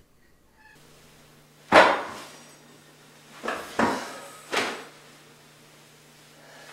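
Four sharp knocks, each with a short ring after it: a loud one about two seconds in, then three more close together a couple of seconds later, over a faint steady hum.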